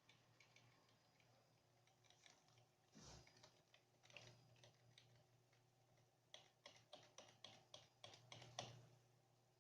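Seagate hard drive clicking and ticking faintly over a low hum and a faint high whine, with a run of quick clicks, about four a second, starting about six seconds in. This knocking and whistling is typical of a failing drive.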